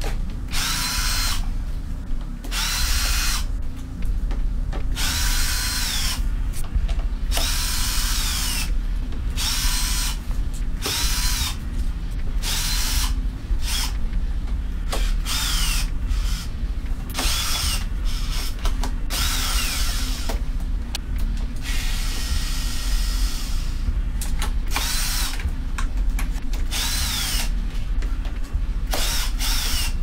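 Makita cordless drill-driver backing screws out of a washing machine's front frame. It runs in about a dozen short bursts, each a whine that climbs to speed, holds briefly and winds down as the trigger is released. One longer, noisier run comes around twenty seconds in.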